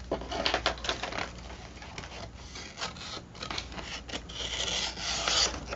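Paper handling: a journal page rustling and scraping with small clicks and taps, then a longer rubbing rustle near the end.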